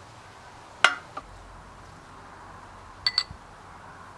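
Metal utensils clinking against a ceramic bowl: one sharp clink about a second in, a small tap just after, and two quick ringing clinks near the three-second mark.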